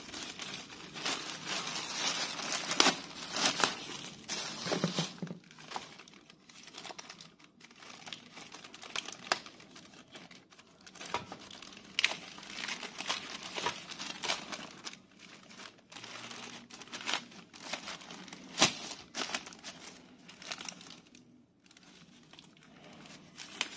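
Plastic packaging crinkling and rustling in the hands as a circuit board is unwrapped from its silvery wrapping, with irregular crackles and a few sharper snaps.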